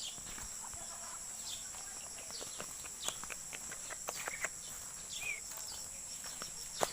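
Outdoor nature ambience: a steady high-pitched insect drone, with short bird chirps scattered through and a sharp click near the end.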